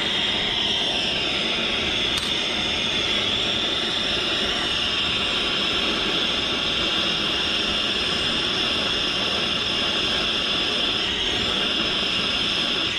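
Soldering torch flame burning with a steady hiss, heating sheet metal until a piece of solder melts onto it.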